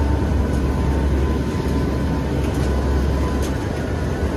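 Hurricane hunter aircraft cabin noise: the engines' steady low drone with a thin, steady whine above it and a few faint rattles.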